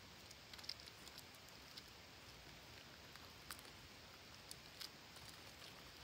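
Near silence: a low hiss with faint, scattered light ticks and crackles as a flock of parakeets shuffles over dry roots and bare earth.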